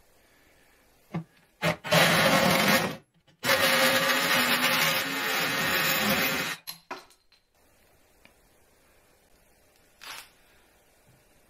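Handheld rotary tool with a thin cut-off disc cutting into a deer antler, in two runs: a short one and then one of about three seconds. The cutting is a dense grinding noise with a high motor whine over it, and there are a few short clicks as it starts and stops.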